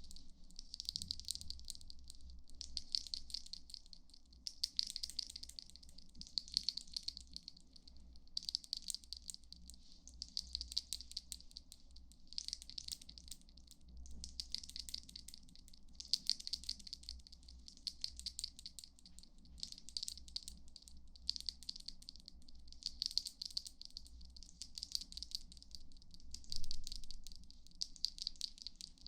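Close-miked ASMR trigger sounds: crisp rattling in bursts of about a second, roughly one a second, each burst a dense run of tiny clicks.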